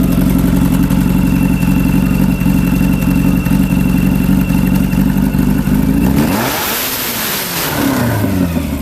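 Naturally aspirated Volkswagen drag car engine running loud and steady; about six seconds in, the steady note breaks into falling and rising pitch sweeps with a burst of hiss.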